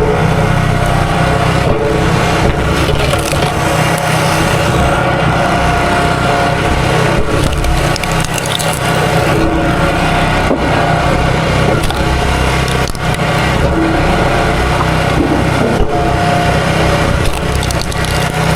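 Small gas engine running steadily under load while wood cracks and splinters.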